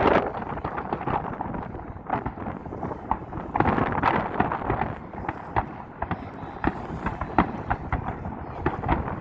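Fireworks display: many irregular sharp bangs and crackles from bursting shells over a continuous noisy bed.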